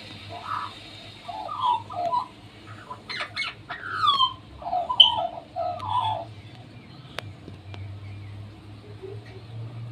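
A wild bird singing: a run of warbling, fluting notes with a few downward-gliding calls, lasting about six seconds and then falling silent. A faint low hum runs underneath.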